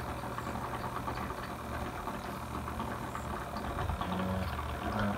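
Steady low mechanical hum of an aquarium pump running, with a faint wash of noise over it.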